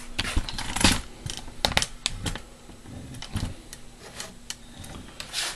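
Close handling noise: irregular clicks, taps and short rustles of things being moved and touched right by the microphone, with a faint steady hum underneath.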